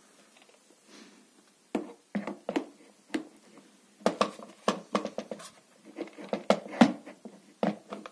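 Hard plastic parts of a Bosch pressure washer being handled, giving an irregular series of knocks and clicks that starts about two seconds in.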